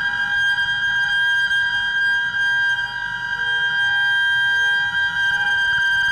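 Modular synthesizer holding a steady high-pitched drone of several sustained tones, with a few faint short lower tones about halfway through.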